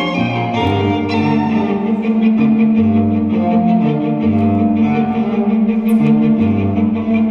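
Instrumental string music: bowed strings hold a long note over a bass line that changes every second or so, with a fast, even pulse of short repeated notes above.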